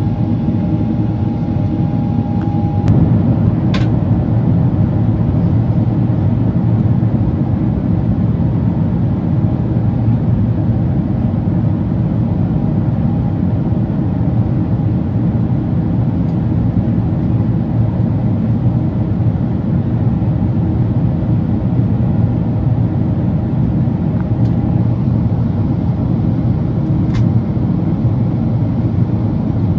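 Steady cabin noise inside a Boeing 777-300ER, the rush of its GE90 engines and the air. A thin steady tone underneath stops about three seconds in, and two faint clicks come, one early and one near the end.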